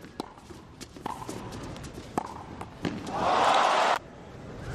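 Tennis rally: several sharp strikes of racquet on ball over the first three seconds, then the crowd cheers as the point is won, for about a second, before it cuts off suddenly.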